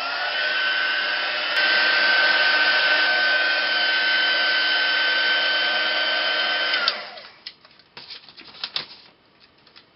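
Handheld craft heat gun running with a steady fan whine, drying freshly applied embossing paste. It gets louder about a second and a half in and is switched off about seven seconds in, its whine falling as the fan winds down, followed by a few light handling clicks.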